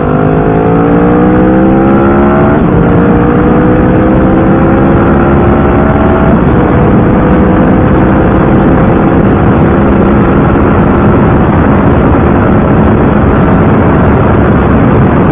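Cruiser motorcycle engine heard from on board, accelerating hard through the gears. Its pitch climbs, drops at an upshift about two and a half seconds in and again about six seconds in, then rises slowly and levels off at speed, over steady wind rush.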